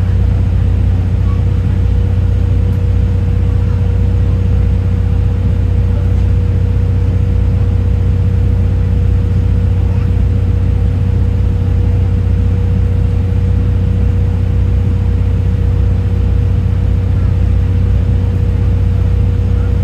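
Steady low drone inside a slow-moving 12-series passenger coach, with a thin steady whine a little under 500 Hz above it and no change in pace throughout.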